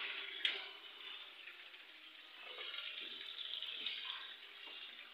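Steady sizzle of chicken frying in oil in a pot on the stove, with a clink of steel utensils about half a second in.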